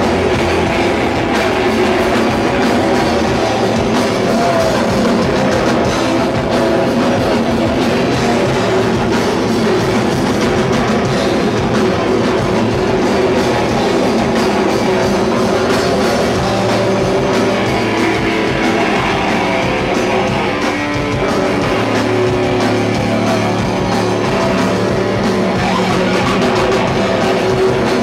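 Hardcore band playing loud and steady, with distorted electric guitar and drum kit.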